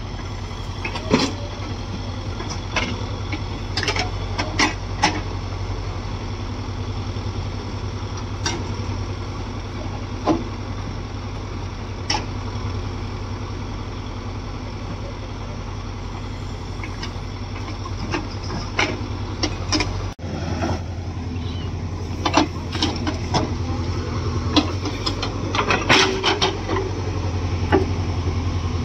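Heavy diesel engine running steadily, with scattered sharp knocks and clanks. The engine sound changes abruptly about twenty seconds in.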